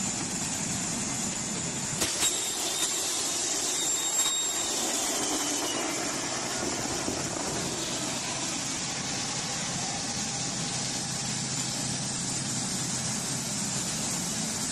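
Airliner emergency evacuation slide deploying: a few sharp knocks about two and four seconds in, then a steady loud rushing hiss as the slide inflates.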